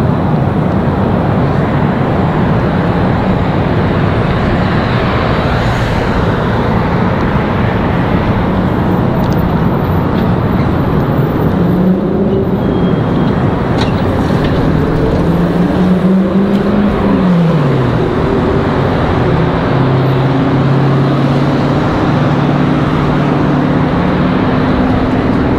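Busy street traffic: car engines running and vehicles passing in a steady wash of road noise. About two-thirds of the way through, one engine's tone rises and then drops away quickly.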